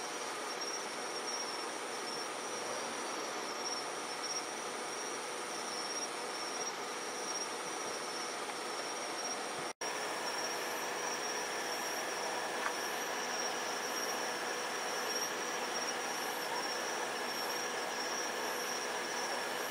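A steady chorus of night insects, with thin, even high-pitched trills over a soft hiss. The sound cuts out for an instant about halfway through.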